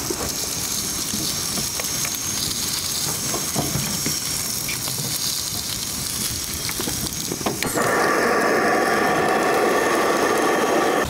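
Eggs, sausages and bread sizzling in a ribbed cast iron grill pan on a portable gas stove: a steady frying hiss with a few light ticks. The hiss turns suddenly louder and fuller about eight seconds in.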